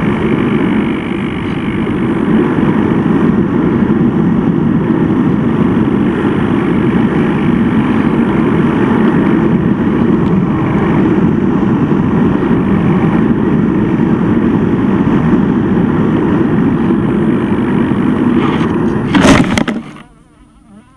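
Steady rush of airflow over the onboard camera of an RC model plane gliding in to land. About nineteen seconds in comes a loud short crash as it touches down in the grass, and the sound then drops away to a faint hum.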